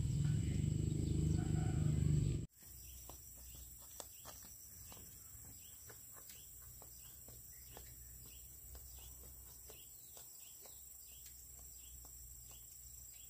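A low rumble that cuts off suddenly about two and a half seconds in, followed by quiet ambience with a faint, short chirp repeating about twice a second.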